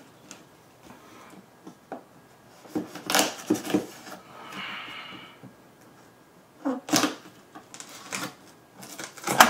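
Cardboard box being cut and opened: a box cutter slits the packing tape with a short scraping stroke about halfway through, amid knocks and clicks of hands handling the cardboard.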